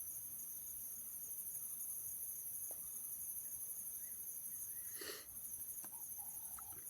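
Night-time crickets chirring in a steady, high-pitched chorus with a fast pulse. About five seconds in there is a brief rustle.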